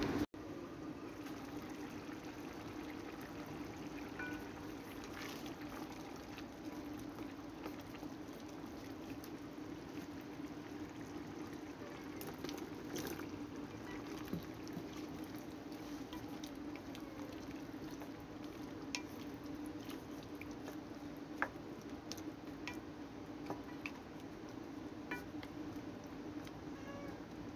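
Stew of chicken gizzards, potatoes and carrots simmering and bubbling in a pot, over a steady low hum, with scattered light clicks and taps.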